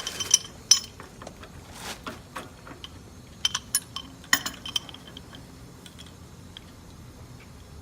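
Metal tools and fittings clinking as a pipe wrench and brass gas-valve parts are handled and lined up on the pipe. The clinks come irregularly, in several small clusters over the first five seconds, each with a short metallic ring, then die away.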